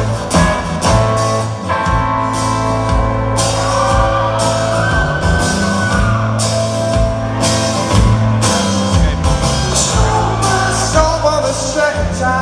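Live rock band playing, with electric guitar, bass and drums under a man singing the melody.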